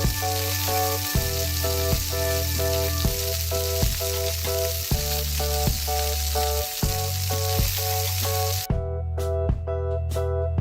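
Frying sizzle over a light, rhythmic backing tune with a steady bass beat; the sizzle cuts off suddenly near the end, leaving the music.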